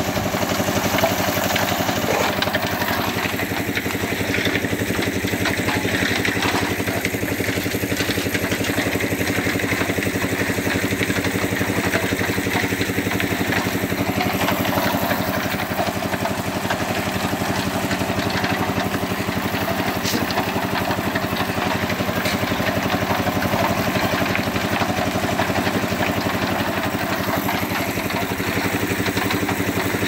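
Concrete mixer's engine running steadily at an even pitch.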